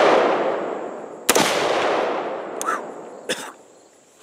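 A single shot from a Diamondback AR-15 in 5.56 about a second in, with a long echo fading over the next two seconds. The tail of the previous shot is dying away at the start, and two short light knocks follow near the end.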